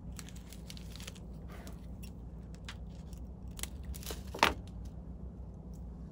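Strands of synthetic flash being handled and snipped to length at a fly-tying bench: light scattered clicks and rustles, with one sharp snip about four and a half seconds in, over a low steady hum.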